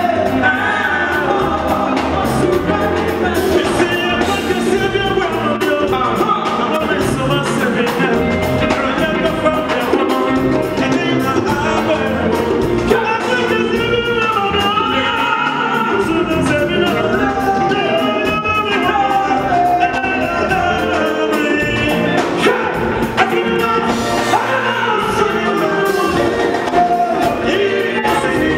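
Live Ghanaian gospel band music: male voices singing lead over a steady drum beat and guitars.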